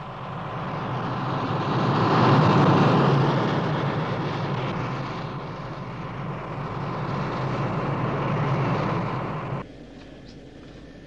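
Eagle spacecraft's rocket engines firing in a science-fiction sound effect: a rushing thrust with a low hum that swells for a couple of seconds, eases, swells again, and cuts off suddenly near the end.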